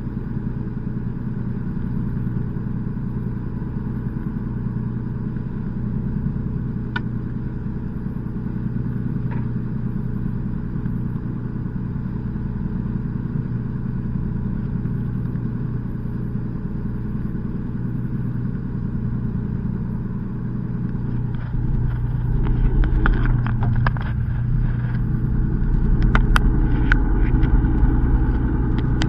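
Fishing boat's engine running with a steady low hum. About two-thirds of the way in it grows louder, with a deeper rumble and scattered short knocks.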